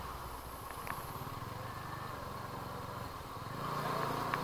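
TVS Apache RTR 200 4V's single-cylinder engine running at low speed, growing louder near the end.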